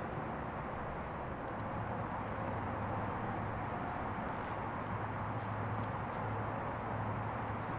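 Steady outdoor background noise: an even hiss with a constant low hum beneath it, and a few faint light clicks.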